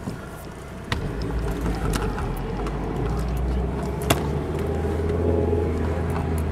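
Car engine and road rumble heard from inside the cabin. It grows louder about a second in and then runs steadily, broken by a few sharp knocks as the camera is handled.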